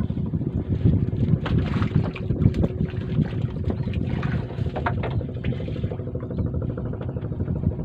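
A motor running steadily with an even hum, with irregular splashing and knocking of water over it that thins out about six seconds in.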